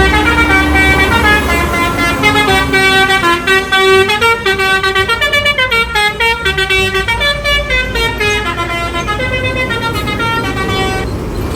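A bus's Basuri 'telolet' multi-tone air horn playing a tune, several notes sounding together and stepping up and down, for about eleven seconds before it stops, over a low engine rumble.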